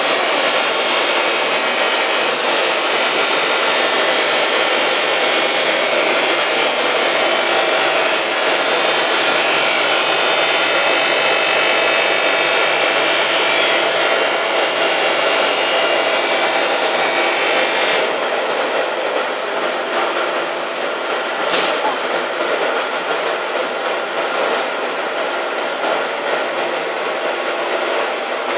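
Bavelloni CR 1111 straight-line glass edging machine running, its grinding head working the edge of a glass sheet carried between pad conveyor tracks: a loud, steady motor whine and grinding hiss with several held tones. About eighteen seconds in, the highest hiss drops away, and a sharp click sounds a few seconds later.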